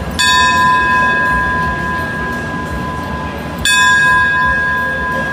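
Brass station bell struck twice, about three and a half seconds apart, each stroke ringing on in a clear, slowly fading tone: the railway departure signal, rung here as a symbolic send-off for the train.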